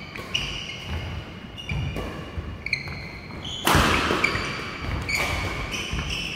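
Badminton doubles rally: court shoes squeaking on the hall floor, footsteps and shuttlecock hits off the rackets, with one loud, sharp racket hit about three and a half seconds in.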